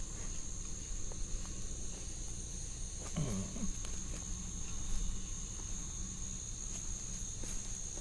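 Crickets chirring in a steady high chorus, with small knocks and rustles from the camera moving and a short low voice-like sound that falls in pitch about three seconds in.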